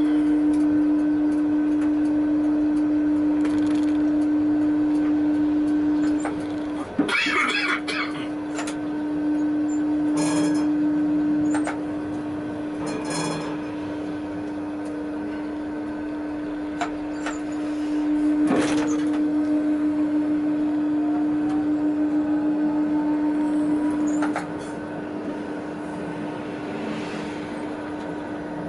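Tatra T6A5 tram running, heard from the driver's cab as it gathers speed: a steady single-tone electric hum that comes and goes in strength, with a faint rising whine in the second half and a few sharp knocks and rattles.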